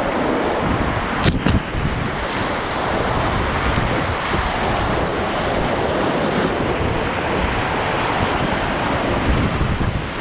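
Steady, loud rush of whitewater on a river in flood, surging around a kayak as it is paddled downstream. One sharp knock about a second in.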